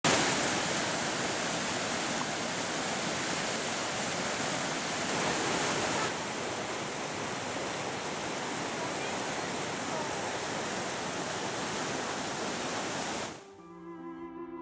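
Fast mountain stream rushing in white water past a wooden footbridge, a steady noise of water with no lulls. Near the end it cuts off and slow string music, a cello, begins.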